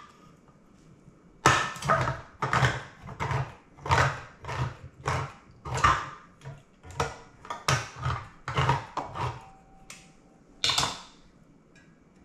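A can of chicken broth being opened with a can opener: a quick run of crunching clicks, about two or three a second, that stops about nine seconds in, with one last click near the end.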